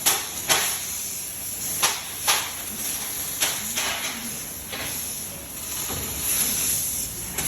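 3D box-tube cutting machine at work: a steady hiss of the cutting process, broken by several short, sharp bursts that fade quickly.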